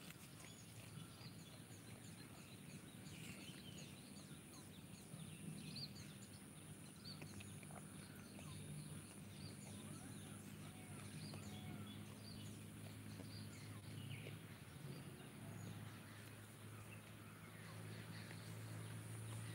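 Faint rural ambience: small birds chirping sporadically, over a low steady hum and a thin, high, steady whine.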